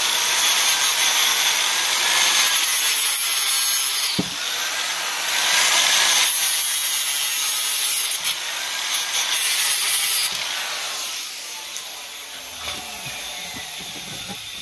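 Angle grinder cutting through the rest of a Power Wheels toy tire, its motor pitch dipping and rising under load. It gets quieter from about eleven seconds in.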